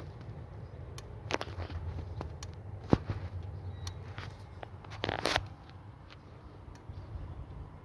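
1998 Jeep Cherokee fuel injectors clicking irregularly during a scanner-commanded actuation test, over a steady low hum that stops near the end. The clicking is intermittent; injectors 1 and 3 are not working normally after a repair to the engine computer.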